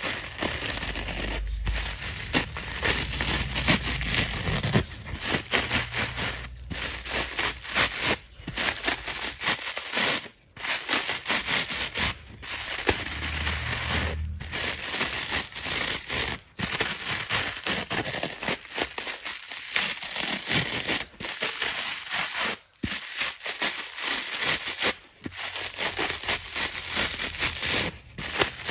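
Dry foam kitchen sponge being ripped apart by hand: a dense, crackling tearing of the foam fibres, broken by short pauses every couple of seconds between pulls.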